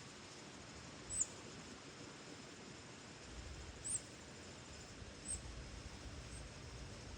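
A small bird giving four brief, very high chirps a second or so apart, over a steady outdoor hiss. A low wind rumble rises about three seconds in.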